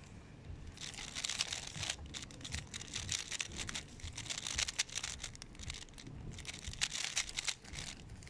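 Plastic 3x3 speed cube's layers being turned fast, in runs of rapid clicking with short pauses between them.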